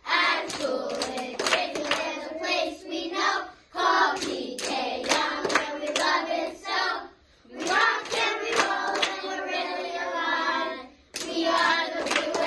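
A group of children singing together, with sharp hand claps through it, in phrases broken by short pauses about every three and a half seconds.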